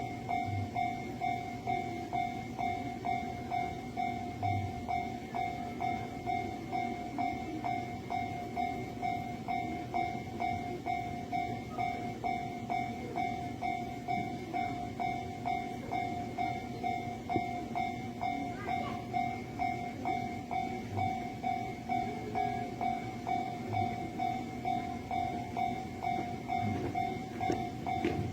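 Japanese railway level crossing alarm ringing its repeating electronic 'kan-kan' tone at an even pace of about one and a half strikes a second. It signals that the barrier is down and a train is approaching. A low rumble of rail or traffic noise runs underneath.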